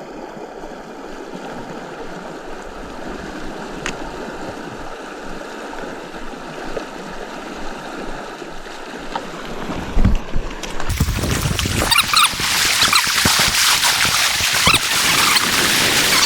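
Fast creek water rushing steadily. About ten seconds in there are a few low knocks, then the rushing becomes much louder and hissier.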